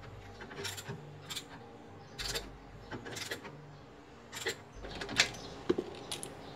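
Irregular metallic clicks and clinks of hand tools working around a car's rear wheel hub and suspension, one every half second or so, the loudest about five seconds in.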